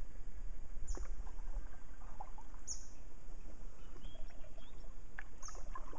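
Riverbank bush ambience: a bird gives three short, high chirps, with faint scattered twittering and clicks over a steady low rumble.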